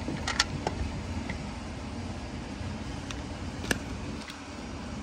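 Steady low rumble with a few sharp clicks and taps, several about half a second in and one near the end.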